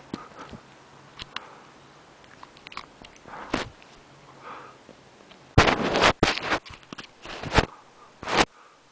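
Maine Coon cat sniffing right at the microphone: faint clicks and rustles at first, then a run of loud short sniffs from a little past halfway, with two more near the end.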